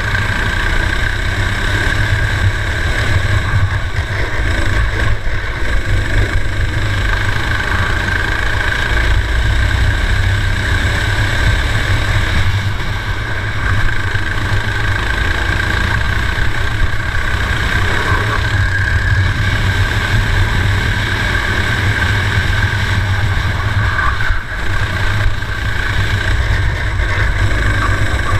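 Racing kart engine running continuously under load through a lap, heard from a camera mounted on the kart, with a strong low rumble under it and a brief dip in level near the end.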